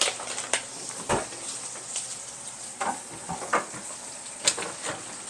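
Ribeye steak searing in bacon grease in a stainless steel skillet, sizzling steadily with a few sharp pops.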